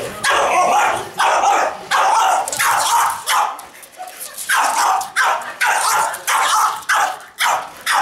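French bulldog barking repeatedly, short loud barks coming about one to two a second, at a remote-control toy car driving near her.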